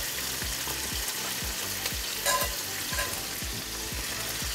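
Butter sizzling in a hot cast-iron pan as a brioche bun toasts in it, with chicken thighs frying in a second cast-iron skillet: a steady frying hiss. A faint beat of about two thuds a second runs underneath.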